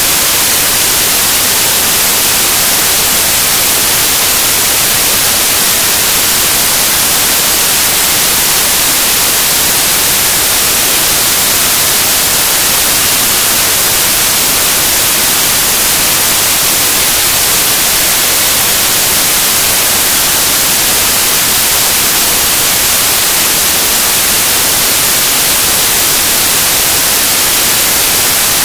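Loud, steady static hiss, brightest in the high range and unchanging throughout, with no other sound heard through it.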